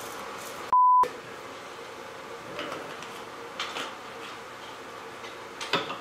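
A single short electronic bleep about a second in: one steady high tone lasting about a third of a second, with all other sound cut out beneath it, as in a censor bleep dubbed over a word. Otherwise faint room noise with a few soft clicks.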